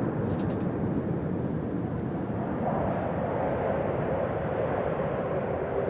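Su-35 fighter jet on afterburner, heard from the ground as a steady, noisy rumble, with a higher tone building in near the end.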